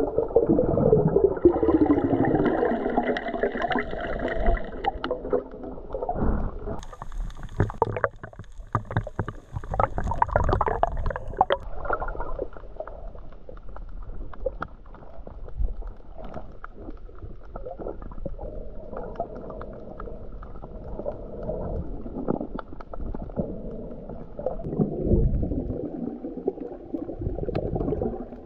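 Muffled underwater sound picked up by a camera held below the surface: gurgling and bubbling water, with a stretch of scattered clicks and crackles a few seconds in.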